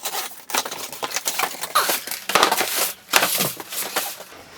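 Packaging being handled and opened: irregular crinkling, crushing and tearing noises.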